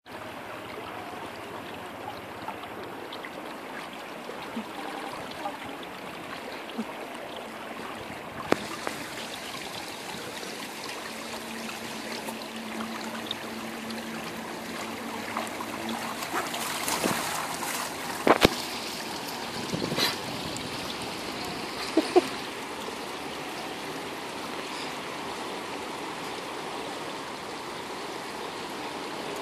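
Water sloshing and splashing as a large dog wades through a shallow fountain pool, over a steady background hiss. A few sharp clicks stand out through the middle, the loudest a pair in quick succession a little past halfway.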